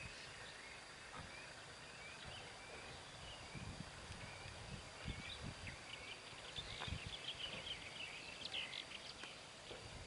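Faint outdoor ambience of small birds chirping and twittering over a steady hiss, with a few brief low thumps.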